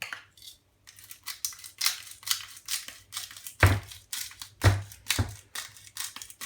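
Pepper mill being twisted over a bowl of potatoes, a quick run of short crunchy grinding strokes, with three dull knocks about halfway through.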